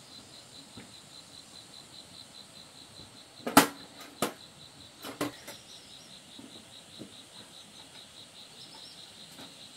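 A handful of sharp clinks and knocks of metal parts and tools being handled, bunched between about three and a half and five seconds in, the first the loudest. Under them an insect chirps in steady quick pulses.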